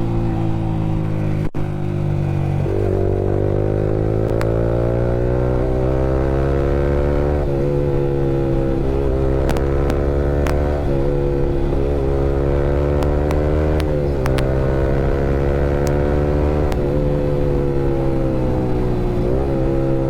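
Yamaha R15 V3's single-cylinder engine running loud through an aftermarket Akrapovic R9 exhaust while riding. The engine note climbs slowly and drops back several times as the bike speeds up and eases off.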